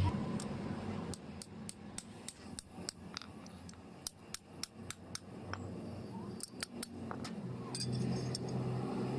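Metal tools tapping and clinking on metal in light, sharp, irregular strikes, up to several a second. A steady low machine hum starts up again about three-quarters of the way through.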